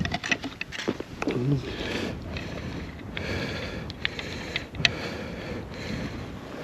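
Gusting wind buffeting the microphone, with scattered sharp clicks and knocks from ice-fishing gear being handled.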